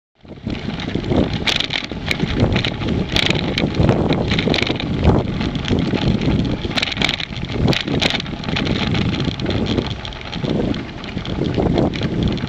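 Wind buffeting the microphone of a camera riding on a moving bicycle, a steady roar with road rumble from the tyres. A handful of sharp rattles come as the bike goes over the bumpy, patched tarmac.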